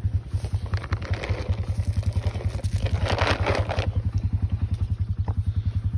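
An engine idling steadily, with an even, rapid throb, and a short burst of rustling noise about three seconds in.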